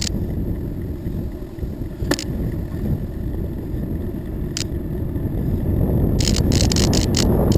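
Wind buffeting the microphone on a moving bicycle, with a steady low rumble of tyres on pavement. A few sharp clicks are scattered through, and near the end they come in quick succession.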